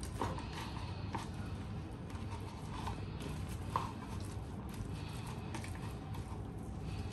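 Boiled potatoes and chickpeas being mashed in a bowl, with a few light knocks of the utensil against the bowl over a steady low hum.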